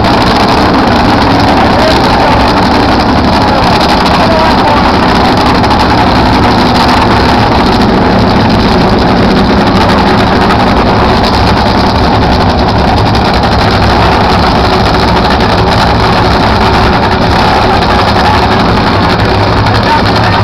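Supercharged nitromethane-burning V8 engines of NHRA Funny Cars idling: a loud, steady rumble with no revving.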